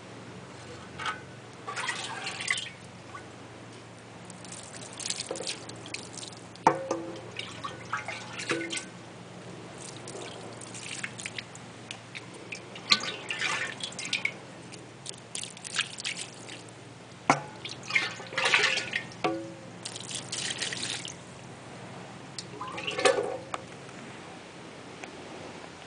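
Water scooped with a dipper from a large glazed jar and poured over bare feet onto a stone slab: irregular splashes and drips, with a few sharp knocks in between.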